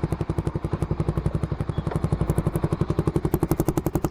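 Suzuki Raider 150 Fi's single-cylinder four-stroke engine idling through an aftermarket ORBR exhaust pipe: a steady, rapid, even putter of exhaust pulses.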